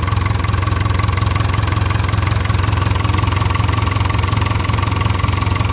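Case 580K backhoe's Cummins four-cylinder non-turbo diesel idling steadily, with a faint steady high whine over the engine note. At idle it runs clean; the black smoke and power loss only show under load.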